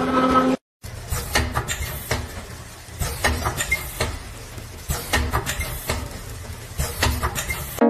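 Vertical form-fill-seal packaging machine running: its sealing jaws and pneumatic cylinders clack shut in a repeating cycle, a pair of sharp knocks about every two seconds with lighter clicks and rattles in between. At the very start a forage harvester's engine runs for a moment before a brief break.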